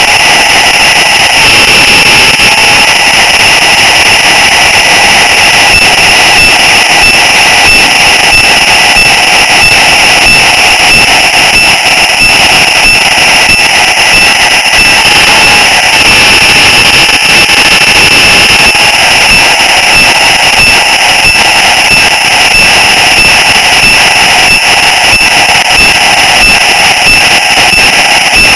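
Model locomotive's small electric motor and gearing running steadily, a loud constant whine heard close up from on board the train, with fine rapid ticking from the wheels on the track.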